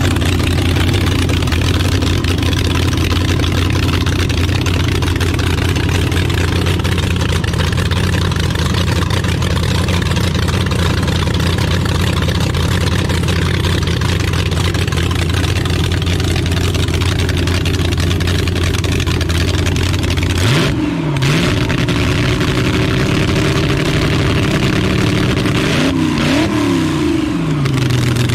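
Supercharged V8 with open zoomie headers on a rail hot rod idling steadily, then revved in short blips about two-thirds of the way through and again near the end, settling to a slightly higher idle.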